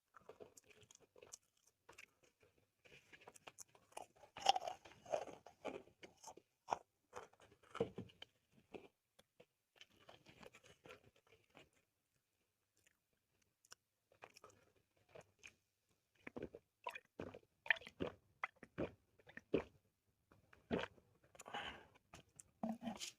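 A person eating close to the microphone, chewing a mouthful of corn rice and sweet-soy chicken. The chewing comes as a run of short mouth clicks and smacks, with a quiet pause of a couple of seconds about halfway through.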